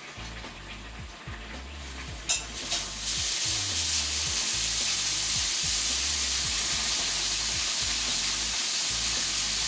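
Slices of canned ham frying in an oiled pan: after a quieter start and a sharp click a little over two seconds in, a steady sizzle sets in about three seconds in and keeps going. Soft background music underneath.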